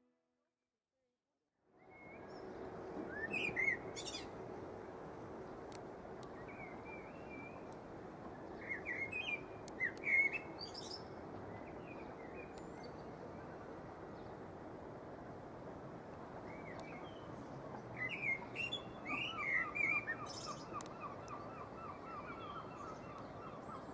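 Birds chirping in short, bending calls over a steady outdoor hiss, starting after about two seconds of silence; near the end one bird gives a quick run of repeated short notes.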